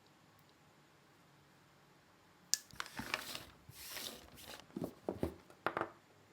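Packaging and product being handled in an unboxing: a sharp click about two and a half seconds in, then irregular rustling, scraping and small knocks for about three seconds.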